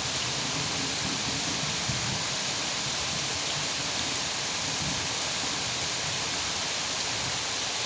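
Steady rain falling, an even hiss that doesn't let up.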